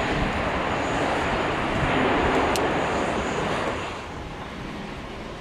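A Boeing 737-800's CFM56 jet engines running loud as the airliner rolls out on a wet runway after landing. About four seconds in, the sound drops to the quieter, steady engine noise of an ATR 72-500 turboprop on approach.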